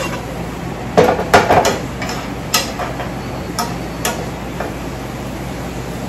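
Spatula and skillet clattering while onions are stirred: a cluster of sharp knocks and scrapes about a second in, then single knocks spread over the next three seconds.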